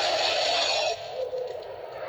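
Custom monster roar for the sea serpent kaiju Manda: a harsh, rasping screech, loud for about a second and then falling to a quieter, drawn-out tail.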